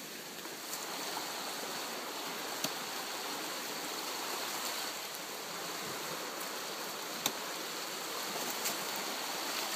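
Steady rushing background noise outdoors, with a few sharp clicks, the clearest about a quarter of the way in and about three-quarters through.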